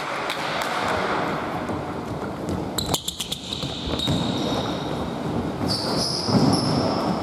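Basketball bouncing on a hardwood gym floor as players run the court, in a reverberant hall. There is a cluster of sharp bounces about three seconds in, and short high sneaker squeaks after it and near the end.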